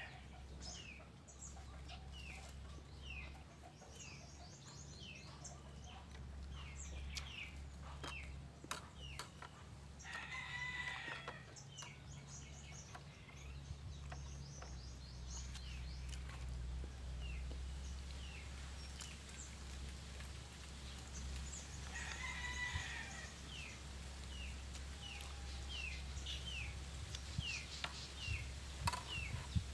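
A rooster crows twice, once about ten seconds in and again about twenty-two seconds in, over short, high bird chirps that repeat steadily and a low, steady hum.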